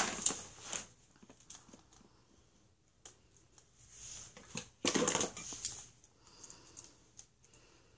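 Foil wrapper of a Kinder Surprise chocolate egg crinkling and clicking as a toddler's fingers handle and pick at it, in irregular short bursts, the loudest about five seconds in.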